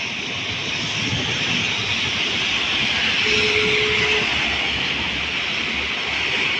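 Heavy rain falling with a steady hiss, and cars driving past on the flooded road, their tyres hissing through standing water, loudest about three to four seconds in as an SUV goes by. A short steady tone sounds for about a second around the same time.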